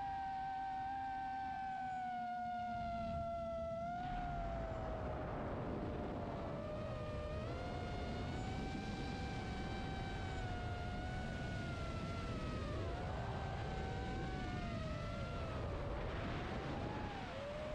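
FPV racing-drone motors and propellers whining. The pitch holds fairly steady for about four seconds, then splits into several tones that rise and fall as the throttle changes, over a constant rush of air.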